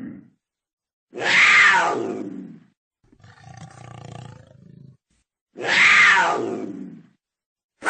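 Cougar calling: two loud, harsh calls, each falling in pitch and fading over about a second and a half. Between them comes a quieter, lower call.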